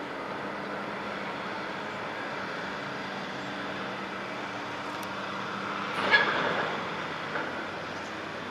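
Steady low drone of a large car ferry's engines carrying across the harbour. About six seconds in comes a brief high metallic squeal that dies away within a second, with a small click soon after.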